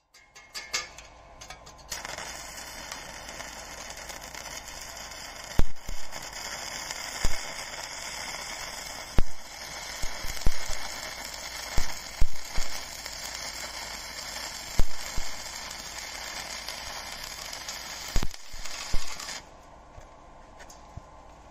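Stick-welding arc from a 1 mm E6313 rod on 1 mm sheet steel. A few short stuttering strikes as the arc is started, then a steady hiss broken by about a dozen sharp pops, cutting off abruptly near the end when the arc is broken.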